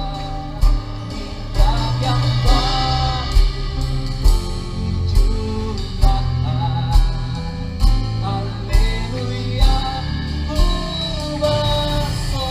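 Live band playing an upbeat gospel worship song with a sung melody. The drum kit keeps a steady beat, with the kick drum landing about once a second.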